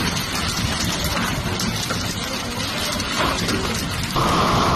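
Steady rain hissing down onto a large pool of open water. Just after four seconds in, the sound cuts suddenly to a louder, brighter hiss.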